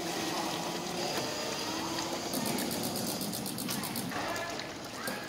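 Cafitesse C700 coffee dispenser running its cleaning flush: water streaming from the dispensing nozzles into a plastic tray over a steady machine hum.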